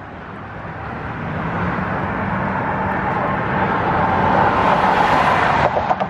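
A road vehicle at highway speed approaching and rushing past close by, its tyre and engine noise swelling steadily for about five seconds and then dropping off sharply near the end.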